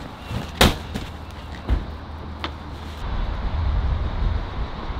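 Knocks and thuds of heavy artificial-turf rolls being handled on a flatbed truck bed. The loudest, sharp knock comes about half a second in, with two smaller knocks over the next two seconds. Then a low, steady rumble takes over.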